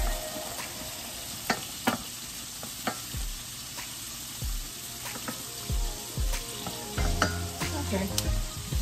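Vegetables sizzling in a stainless steel sauté pan as they are stirred with a wooden spoon, with occasional light knocks and clicks against the pan.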